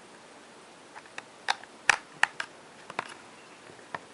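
A run of sharp, irregularly spaced clicks and taps of small parts and a small screwdriver being handled on a laptop's underside during reassembly. About nine clicks start about a second in, the loudest near the middle.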